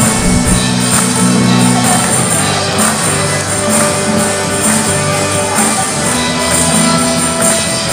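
A small live band playing a song: strummed acoustic guitar and bass guitar, with a high jingling along.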